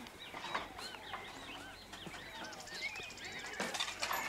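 Birds chirping: many short, arched chirps in quick succession, with a high buzzy trill a little past three seconds in and a brief rustle near the end.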